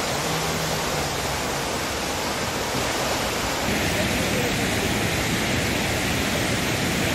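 Rushing water of a rain-swollen hillside stream, a steady noise that turns a little brighter just over halfway through.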